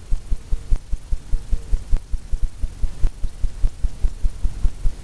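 Fan brush tapped by its corner against a stretched canvas, dabbing on paint: a steady run of short low thumps, about five a second.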